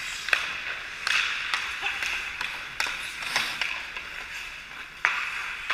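Ice hockey play: sharp clacks of sticks and puck, about six in all, over the steady scrape and hiss of skate blades on the ice.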